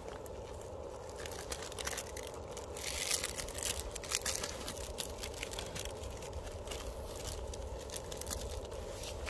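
Rice and broth simmering in a camping pot: a rapid patter of small bubbling pops and crackles over a steady hiss, thickest a few seconds in.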